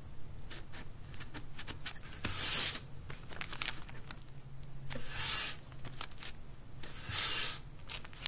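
Three brief rubbing rasps, each about half a second and roughly two seconds apart, from a wooden straight edge being pressed and slid against the paper sheet under a disc of nerikiri as its sides are flattened. Light ticks come between them over a faint low hum.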